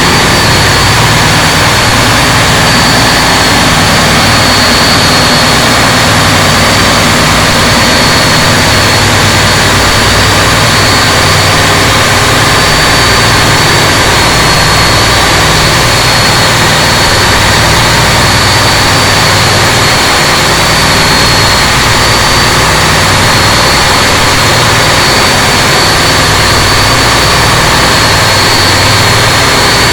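A motorboat engine running steadily at speed, with a steady high whine over a low hum, under a loud, continuous rush of wind and water.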